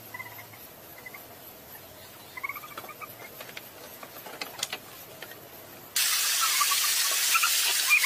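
Faint scattered chirps over a quiet background, then about six seconds in the loud, steady rush of a waterfall starts suddenly, with chirping over it.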